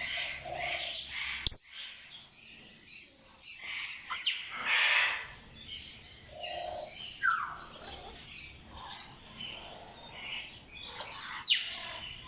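African grey parrots calling in an aviary: a jumble of chirps, squawks and whistles, including several whistles that glide downward. A single sharp click comes about a second and a half in.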